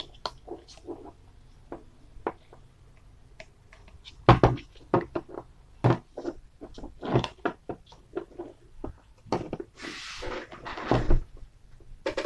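Handling noise from a hard plastic container lid being turned over and set down by hand: scattered clicks, taps and knocks, with a brief scraping hiss near the end.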